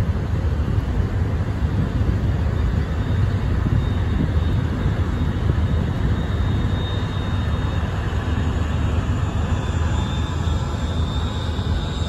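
Harbor tugboat's diesel engines running with a steady low rumble as it passes close by, its propeller wash churning the water. A faint high steady tone comes in near the end.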